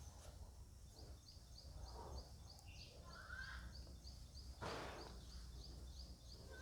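Faint background noise with a small bird's short high chirp repeated evenly, about two to three times a second. A brief burst of rustling noise comes about two-thirds of the way in.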